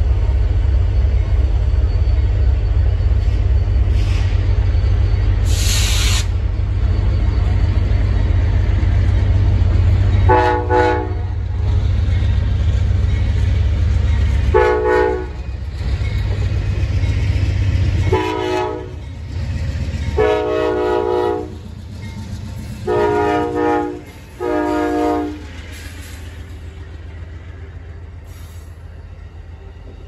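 Amtrak passenger train's diesel locomotive sounding its air horn six times between about ten and twenty-five seconds in, a mix of long and shorter blasts, over the low rumble of the train approaching and rolling past.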